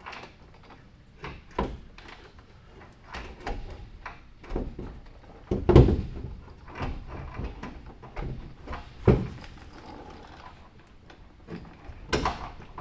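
Irregular knocks and clunks of tools and parts being handled while a car's transmission is worked loose, the heaviest clunk about six seconds in and another about nine seconds in.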